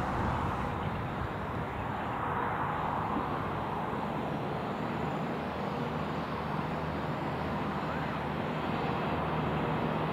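V/Line VLocity diesel railcar approaching, its engines giving a steady low drone that grows a little louder near the end.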